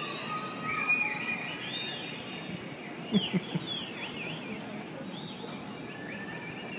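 A crowd of cruise-ship passengers whooping, whistling and calling out across to a passing ship in farewell, many high voices overlapping, with a louder cluster of shouts about three seconds in.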